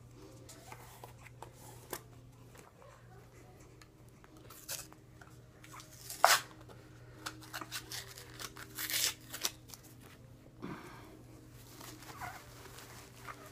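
A small packet being handled and torn open: short rustling, tearing noises, loudest about six seconds in and again in a cluster around nine seconds, over a faint steady hum.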